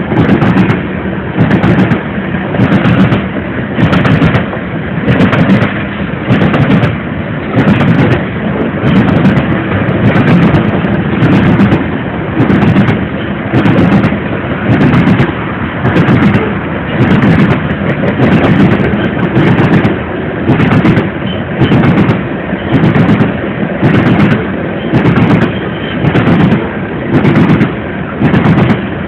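Freight train of grain cars rolling past at close range, steel wheels on the rails clanking in a steady repeating rhythm about once a second as the cars go by.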